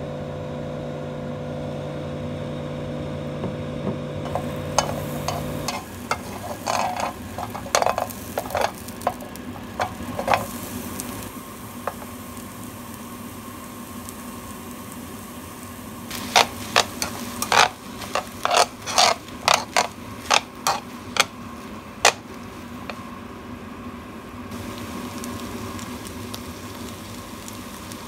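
Oil sizzling in a grill pan as onion slices and then greens are stir-fried, with a spatula clacking against the pan, sharply and repeatedly about two-thirds of the way in. A steady hum in the first few seconds cuts off suddenly.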